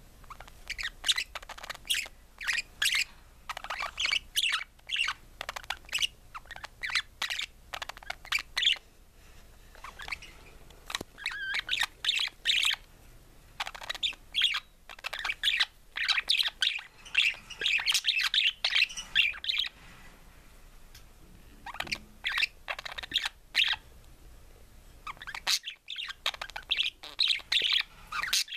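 Budgerigar (parakeet) singing: long runs of rapid, varied chirps and warbles, broken by a few short pauses.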